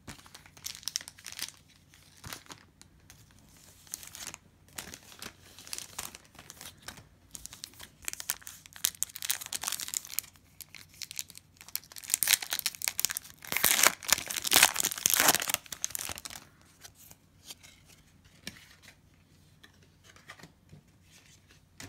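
A foil trading-card pack wrapper being crinkled and torn open, in scattered bursts of crackly rustling that are loudest a little past the middle, then thinning out near the end.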